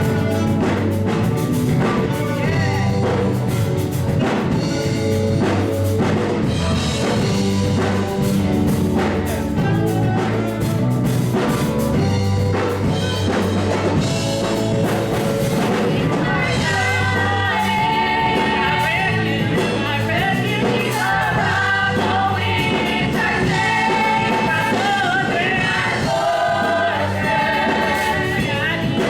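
Live gospel praise music with band and drum kit, with voices singing from about halfway through.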